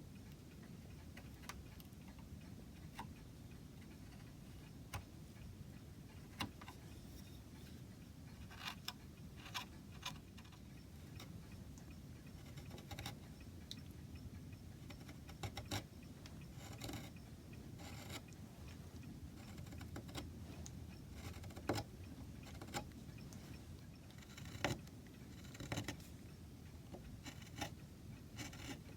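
Scattered, irregular light clicks, taps and small scrapes of hand tools working on a carved wooden piece, over a low steady hum.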